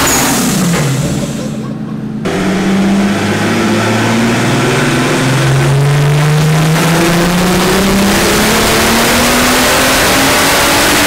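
Turbocharged 3.2 VR6 engine of an Audi A3 quattro on a chassis dyno, making a power run. The revs fall and the sound dips for the first two seconds, then it comes back in sharply and the engine note climbs steadily under load for the rest.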